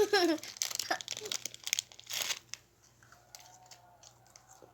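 Plastic snack wrapper crinkling and tearing, a quick run of sharp crackles over the first two seconds or so that then fades to quieter rustling.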